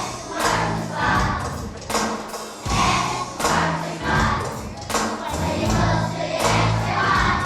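Children's choir singing a song over an instrumental accompaniment with a steady beat.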